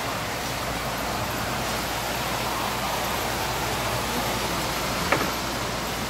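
Steady rushing background noise with a low hum, broken by one sharp click about five seconds in.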